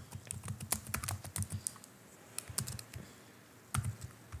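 Typing on a computer keyboard: a quick run of key clicks, a short lull in the middle, then a few more keystrokes and a louder pair of presses near the end.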